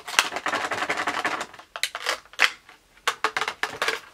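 Clear plastic packaging crinkling and crackling as a collectible figure is worked out of it, followed by a few sharp plastic clicks.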